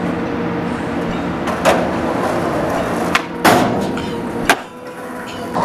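Skateboard wheels rolling on concrete with a couple of light knocks, then the tail snapping an ollie about three and a half seconds in and the board landing with a sharp clack about a second later.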